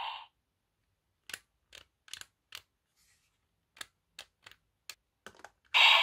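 About ten sharp plastic clicks as the DX Raising Sword toy's parts are handled and pressed. The toy's loud electronic sound effect stops just after the start and starts again near the end.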